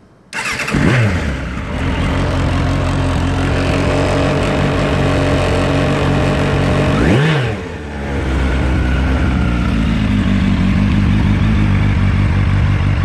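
Suzuki Bandit 1200S K1 inline-four starting about a third of a second in and catching at once after a year standing, its fuel-tap vacuum diaphragm newly repaired. The revs flare briefly and drop to a steady idle, with one throttle blip about seven seconds in before it settles back to idle.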